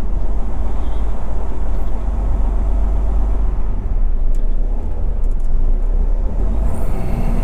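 Semi-truck diesel engine running under throttle with a steady low rumble, as the empty tractor-trailer tries to pull forward uphill on ice and cannot get traction.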